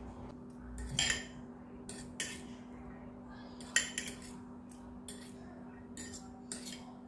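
Light, scattered clinks and taps of a utensil against a bowl as luncheon meat slices are dipped one by one into beaten egg, over a low steady hum.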